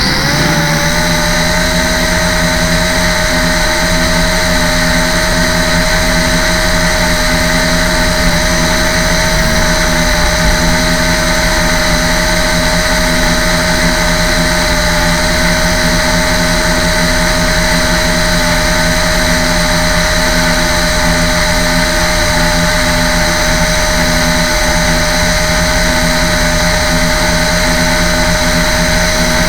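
LaTrax Alias quadcopter's electric motors and propellers whining steadily, heard from its own onboard camera; the pitch rises just at the start and then holds, with wind rumbling on the microphone.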